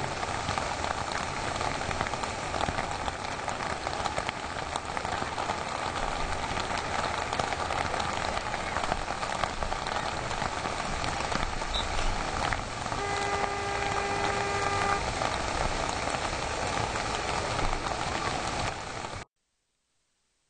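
Steady rushing background noise of the outdoor match feed. A single held tone lasts about two seconds a little past midway, and the sound cuts off abruptly shortly before the end.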